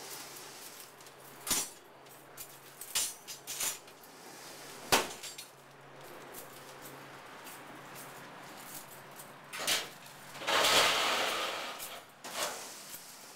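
Stacked wire lunch racks clattering and knocking as they are handled, with a sharp metallic knock about five seconds in. Near the end the stack scrapes for about a second and a half as it is dragged across the waxed floor.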